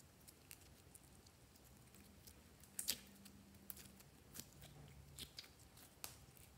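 Clear jelly slime squeezed and stretched by hand: soft sticky clicks and squelches, scattered and uneven, the loudest about three seconds in.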